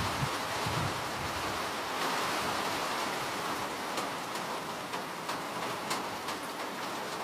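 Steady rainfall: an even hiss with scattered sharp ticks of single drops striking a surface. A low rumble fades out in the first second.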